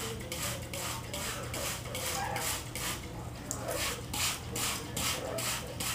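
Water sprayed at a bathing yellow-naped Amazon parrot in quick, even spurts, about three a second, over a steady low hum.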